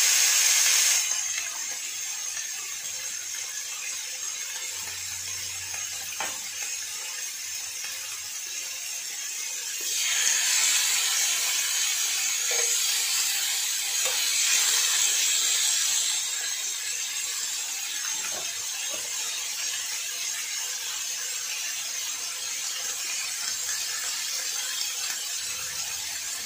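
Tuna steaks sizzling on a hot electric grill pan, a steady high hiss. The sizzle swells louder for several seconds about ten seconds in, as a second steak goes onto the plate, and there are a few faint clicks.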